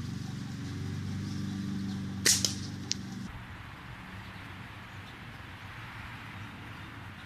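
A single gunshot about two seconds in, a sharp crack followed at once by a shorter second crack and a faint click, from a gun being sighted in. A steady engine hum beneath it stops about a second later.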